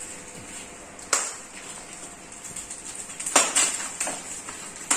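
A few sharp clicks and light knocks: one about a second in, a louder cluster about three and a half seconds in, and another near the end, over a steady hiss.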